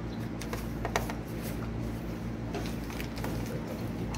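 Scattered small clicks and taps of a screwdriver working the bottom-panel screws of a laptop, with one sharper click about a second in, over a steady low hum.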